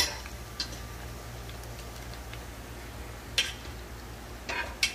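A few sharp metal clicks as a wire spider skimmer full of fried chicken knocks against the rim of the frying pot while the oil drains, the loudest about three and a half seconds in and a quick cluster near the end. A low steady hum runs underneath.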